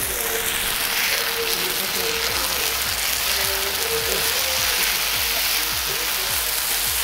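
Goat intestines frying with onions and curry leaves in oil on a black iron griddle (kal), a steady sizzle as they are stirred with a metal spatula, with faint background music underneath.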